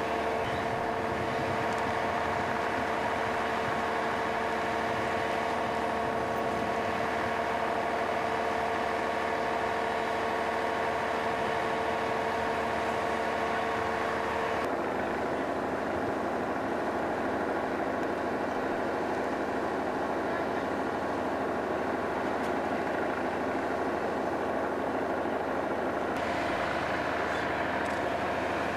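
Steady drone of heavy vehicle engines running at idle, a constant hum of several tones. The mix of tones shifts about halfway through.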